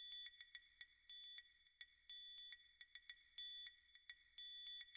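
Outro jingle of rapid, high, bell-like chime notes that come in quick runs about once a second.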